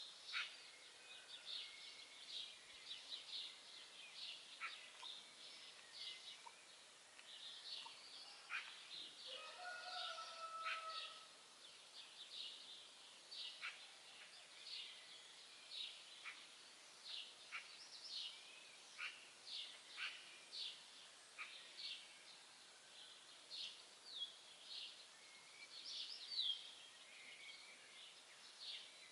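Songbirds chirping and singing: a steady stream of short, high chirps and quick whistled notes from several birds, with one lower, longer call about nine seconds in.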